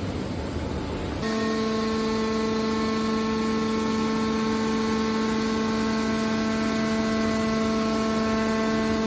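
Hydraulic scrap-metal baler running as its lid lowers over a charge of coiled steel wire: a rough rumbling noise, then from about a second in a steady, even-pitched hum from the hydraulic power unit.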